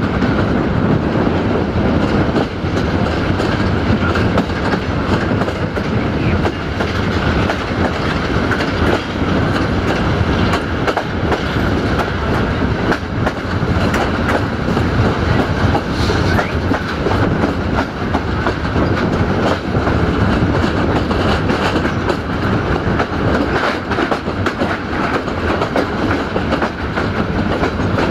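Passenger train hauled by a 060-DA (LDE2100) diesel locomotive, heard from an open coach window as it runs: a steady running rumble with the wheels clicking over rail joints and points.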